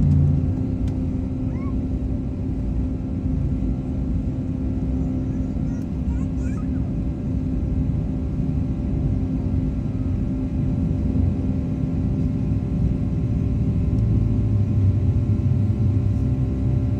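Boeing 757-300 jet engines running: a steady low rumble with a constant hum, growing a little louder about fourteen seconds in.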